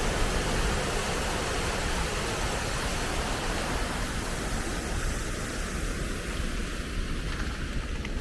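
River water rushing over a dam: a steady rushing noise that thins a little about five seconds in.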